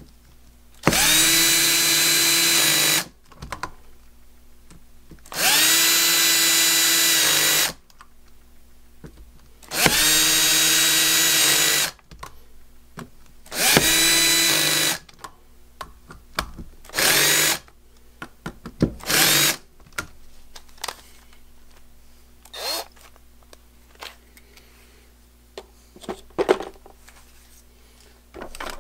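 Cordless drill-driver running screws in. It makes four runs of about two seconds, each whining up to speed, then two short bursts. Light metallic clicks and taps of parts being handled follow.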